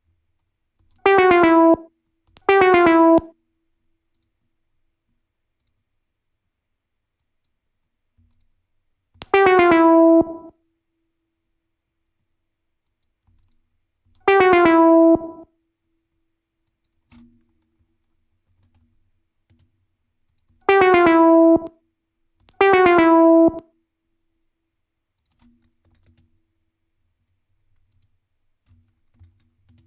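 The same short synthesized sound-effect sample triggered six times at uneven intervals. Each time it is a buzzy electronic tone under a second long that dips briefly in pitch at its start and then holds one note, with silence between triggers.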